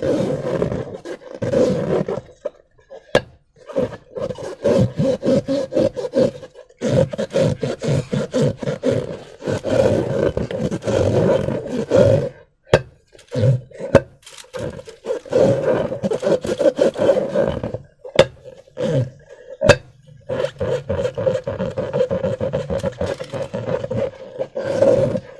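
Slime being worked in rubber balloons: repeated bursts of squishing and rubbing, with a few sharp clicks.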